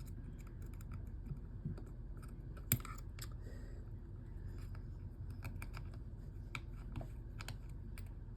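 Small irregular clicks and taps of tools and loose phone parts being handled during a smartphone teardown, with one sharper click a little under three seconds in, over a steady low hum.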